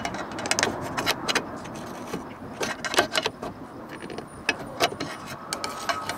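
Irregular light clicks, knocks and small metallic rattles from a car's electric fuel-filler door latch, worked by hand without battery power.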